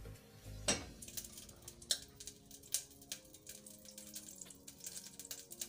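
Solid butter going into a hot stainless-steel saucepan on a gas burner, crackling faintly as it starts to melt. A few sharp knocks of the wooden spatula against the pan stand out, three of them within the first three seconds.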